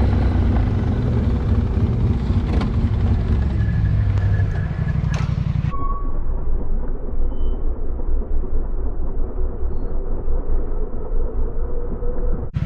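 An ATV engine running. About six seconds in the sound changes abruptly, and the engine is heard idling with an even low pulse.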